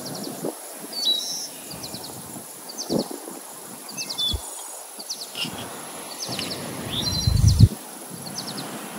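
Short high bird chirps repeating about once a second, with soft knocks as a spoon drops filling onto dough on a wooden board. A brief low rumble comes near the end.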